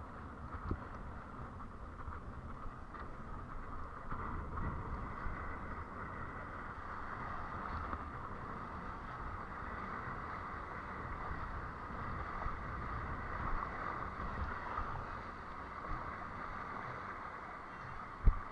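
Water rushing past a windsurf board with wind buffeting the microphone, in a steady hiss and rumble, and a single sharp knock just before the end.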